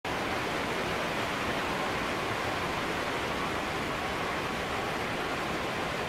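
Wind blowing through trees: a steady rush of rustling leaves and branches, even in level with no distinct gusts.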